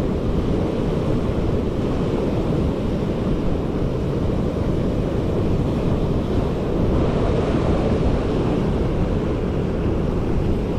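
Wind buffeting the microphone over surf breaking on a rocky shore: a steady rushing noise.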